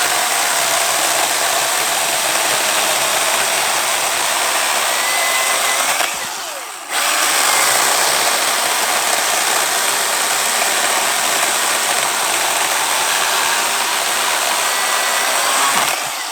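Milwaukee M18 Fuel battery chainsaw's brushless motor running at full speed, cutting through an ash log with a high whine and chain noise. About six seconds in the motor briefly spins down and picks up again, and it winds down near the end.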